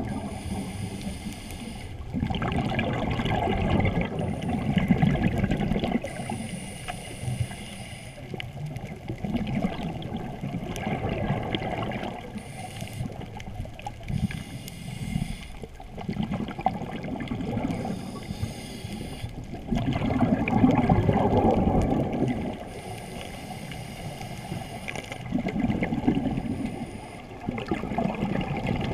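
Scuba diver breathing through a regulator underwater: stretches of gurgling exhaled bubbles alternate with quieter, hissing inhalations in slow cycles every few seconds.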